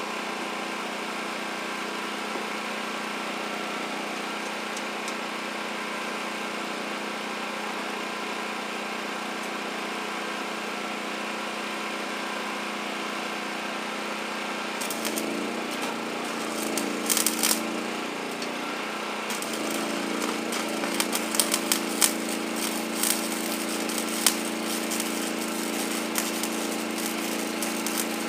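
Small engine running steadily. About 15 seconds in an electric welding arc is struck, and from about 19 seconds the arc crackles and spits continuously while steel is welded on the plow frame, the engine's pitch wavering under the load.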